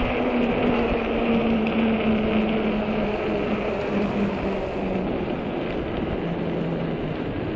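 Ecotric 48V fat-tire e-bike's rear hub motor whining, its pitch slowly falling as the bike slows down, over a steady rush of fat tyres on pavement and wind.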